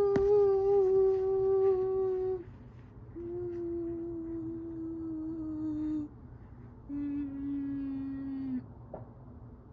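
A voice holding three long, wavering notes, each lower than the last, with short pauses between them.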